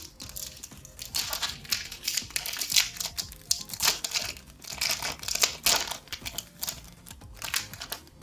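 Crinkling and tearing of a Pokémon booster pack wrapper as it is ripped open and the cards are pulled out, in many irregular rustling bursts, with background music under it.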